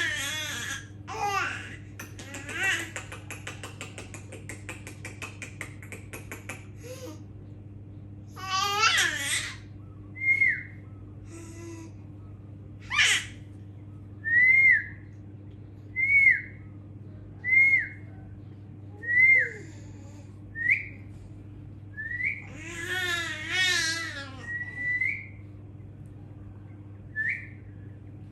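A baby laughing and babbling in short bursts, with a string of short whistled chirps from about ten seconds in, one roughly every second and a half, made to get the baby's attention.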